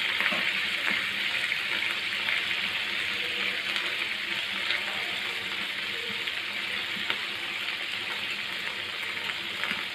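Beef mince kababs sizzling in oil in a frying pan, a steady hiss, with a few light taps of the fork as they are turned. The yogurt's liquid has nearly cooked off, and the kababs are frying in the fat they have released.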